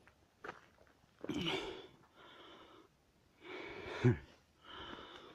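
A person breathing heavily, about four breaths in and out, from the effort of hiking over a rocky slope. One breath ends in a short voiced grunt a little after four seconds in.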